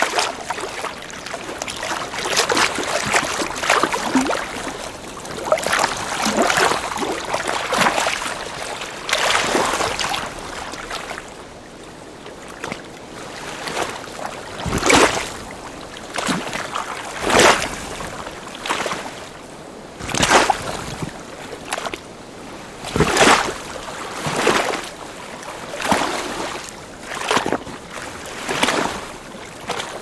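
Small lake waves lapping at the shore. For the first ten seconds or so the water washes in a near-continuous, rising and falling wash; after a quieter spell, separate laps and splashes come about every two seconds.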